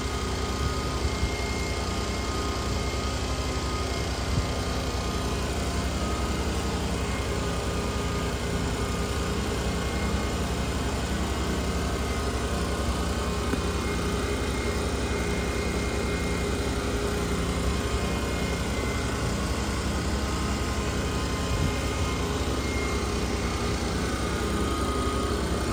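A steady machine drone that runs on without a break.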